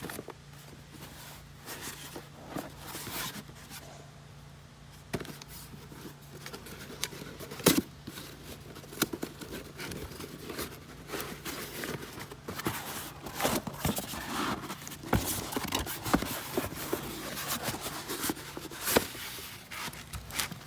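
Irregular clicks, knocks and scrapes of hands working with tools and parts, growing busier after about five seconds with a few sharper knocks, over a steady low hum.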